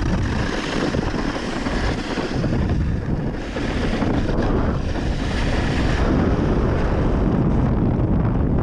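Wind buffeting an action camera's microphone during a snowkite run: a steady low rumble with a hiss over it that eases about six seconds in.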